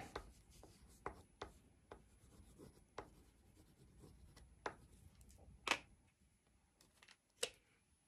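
Crayon rubbed over drawing paper: faint, irregular scratchy strokes, a few of them louder.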